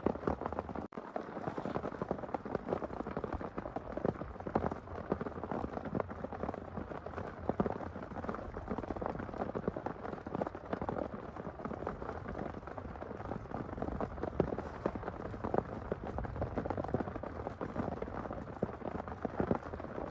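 Heavy rain falling steadily onto a nearby surface: a dense, continuous stream of individual drop hits, with a brief dip about a second in.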